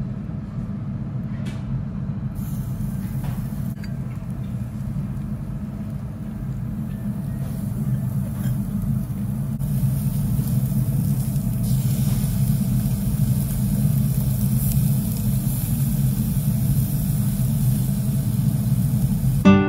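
Slices of beef sizzling on a wire mesh grill over charcoal, the sizzle growing louder about halfway through once the meat is on the grill. Under it runs a steady low rumble.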